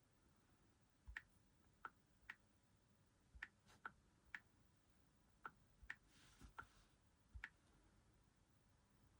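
Faint, irregular clicks, about a dozen of them scattered over several seconds, with a brief soft rustle about six seconds in.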